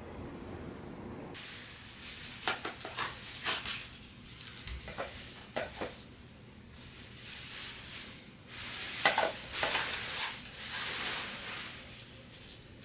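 A cat eating dry kibble from a bowl: irregular crunching and clicking of the pellets, coming in clumps and loudest about nine seconds in.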